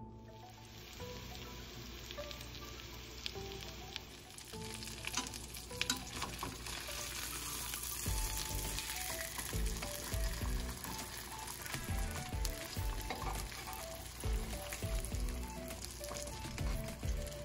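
Seasoned chicken breasts sizzling in hot oil in a stainless steel skillet, the sizzle growing fuller about four seconds in as the pieces are turned with metal tongs, with a few light clicks of the tongs. Background music with a steady beat plays underneath.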